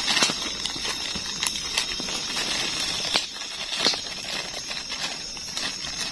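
Night insects trilling in a steady high-pitched drone, with scattered small crackles and clicks over it.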